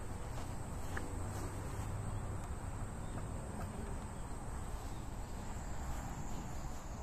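Insects chirring in one steady high-pitched drone, over a low rumble on the microphone and a few faint clicks.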